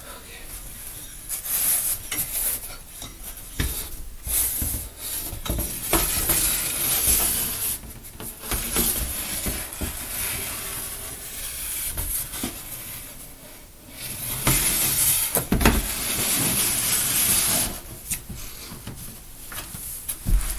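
Irregular rubbing, scraping and light knocking from a small homemade garage door being worked by hand: a wire-hanger carriage sliding along a curtain-rod rail as the door goes up and down. The loudest stretch comes about two-thirds of the way through.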